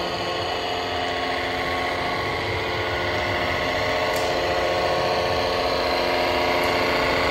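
Radio-controlled model tractor's electric drive running with a steady whine as it tows a tipper trailer.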